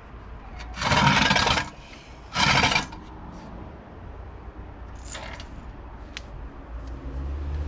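Two short bursts of metal clattering and rattling, about a second and a half apart, from a Ryobi bench drill press being handled and shifted, with a few faint clicks after.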